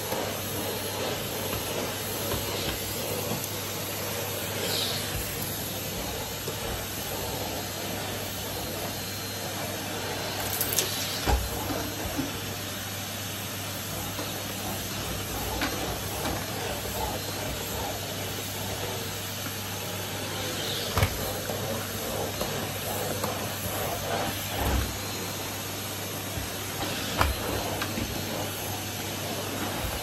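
Numatic Henry tub vacuum cleaner running steadily, a constant airy hiss over a low hum as its floor tool sucks across carpet. A few sharp knocks sound through it.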